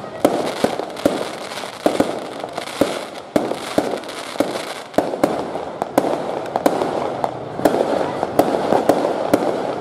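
Fireworks and firecrackers going off: sharp, irregular bangs several times a second over a continuous dense crackle.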